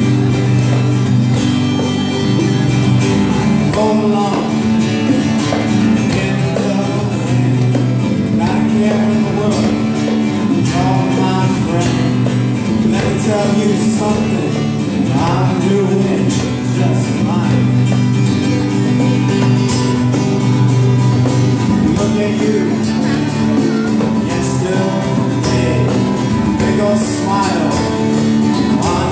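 A man singing over a strummed acoustic guitar in a live solo performance of his own song.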